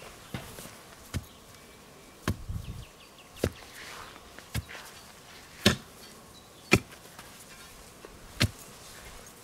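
Hammer blows: seven sharp strikes about a second apart, of uneven strength, the two hardest just past the middle.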